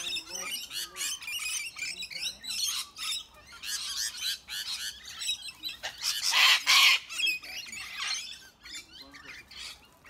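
A mixed flock of sulphur-crested cockatoos and rainbow lorikeets squawking and chattering, with many short, shrill calls overlapping. One loud, harsh screech a little past halfway is the loudest thing.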